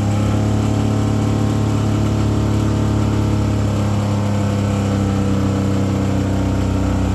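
Oldsmobile Bravada's 4.3-litre V6 running at a steady, held engine speed in neutral, an engine with an already-failing rod bearing being run to destruction.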